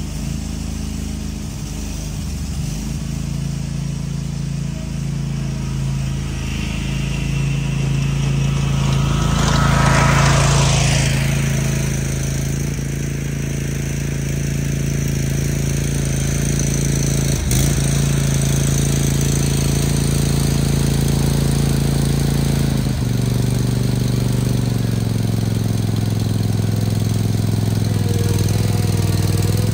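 Troy-Bilt Mustang Z54 zero-turn mower's engine running steadily just after starting, with a louder rushing swell about ten seconds in. Near the end it settles to a lower, slower speed, and a single sharp click comes shortly before that.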